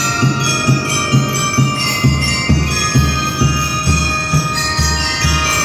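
Drum and lyre corps playing: bell lyres ring out the melody over a steady beat of drums, and a deeper bass drum joins the beat about two seconds in.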